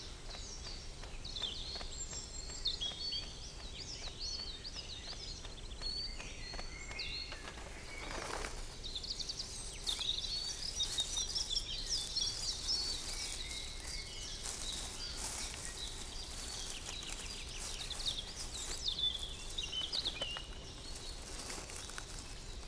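Tropical rainforest ambience: many birds chirping and calling in short, quick high notes, with a faint insect buzz, over a low steady background.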